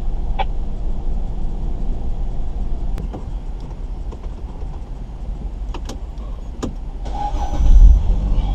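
Steady low rumble of a car running, with several sharp clicks scattered through it; near the end a louder rushing noise swells for about a second.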